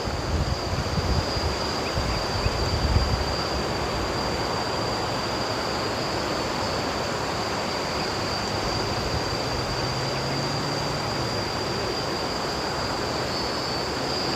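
Wind buffeting the microphone, gusting hardest in the first three seconds, over insects droning on one steady high note.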